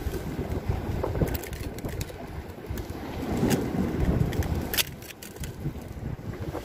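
Low rumble of wind on the microphone with a few sharp clicks and scrapes of fishing pliers and a lip grip working a lure's hooks free.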